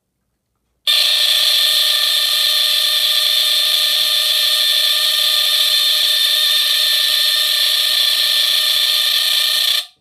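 Delta-Larm mechanical squealer horn of a mid-to-late-1960s Vulcan Autosonic Mk. SRO-4 photoelectric smoke detector sounding in alarm, set off by match smoke at its sensor. It gives a very loud, raspy, steady squeal that starts abruptly about a second in and cuts off just before the end. The horn is very corroded, and the owner is not sure that it sounds as it should.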